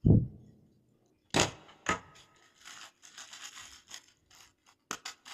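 Hands handling wired earphones and their packaging: a dull thump, two sharp clicks, then scratchy rubbing and scraping, and a few quick light clicks near the end.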